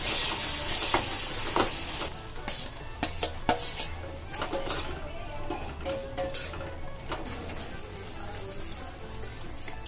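Flat steel spatula stirring and scraping spicy okra and potato masala in an iron kadai, the masala sizzling in hot oil, with clicks of the spatula on the pan. The sizzle is loudest in the first few seconds and then dies down.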